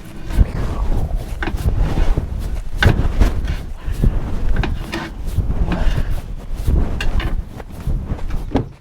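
Irregular knocks and clatter of drawers and cupboard doors being opened, shut and handled, several sharp knocks among them.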